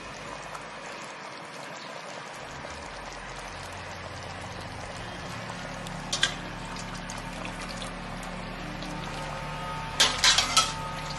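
Creamy white sauce bubbling and simmering in a pan, a steady bubbling hiss. A couple of sharp clicks come about six seconds in, and a quick run of louder knocks and clinks near the end as a utensil works against the pan.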